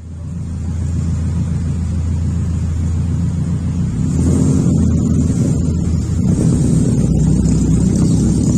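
Ford Fiesta Mk7's engine and exhaust running with a steady low drone, growing fuller and louder about four seconds in as the car moves off.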